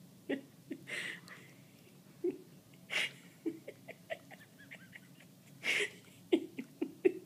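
Portuguese Water Dog huffing air three times as she bares her teeth in a grin, with small mouth clicks and smacks in between.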